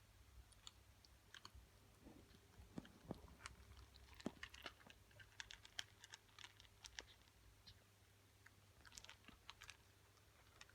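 A kitten chewing dry kibble: faint, irregular crisp crunches and clicks, thickest in the middle.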